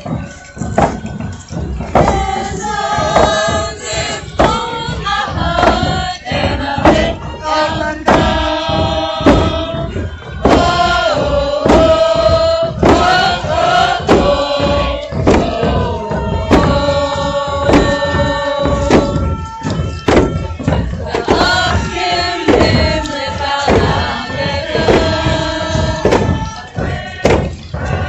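Voices singing together in a chant-like song, with a steady beat of thuds under it.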